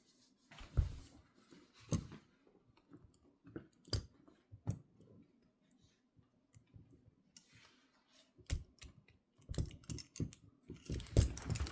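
Peerless 700C handcuff being worked with a shim: scattered sharp metallic clicks and rattles, thickening into a rapid run of clicks near the end.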